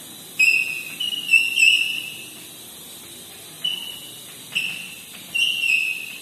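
Chalk squeaking on a chalkboard while a word is written: a string of short, high-pitched squeals, about six in all, each under a second long.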